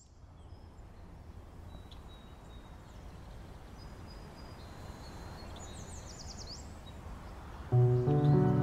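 Outdoor ambience fading in: a steady low background rumble with faint bird chirps and twitters. Near the end, music starts abruptly with sustained chords, much louder than the ambience.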